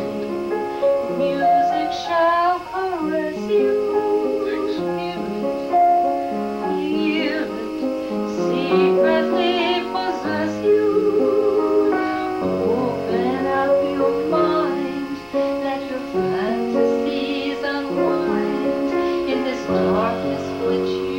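A woman singing a slow song with vibrato, accompanied on piano.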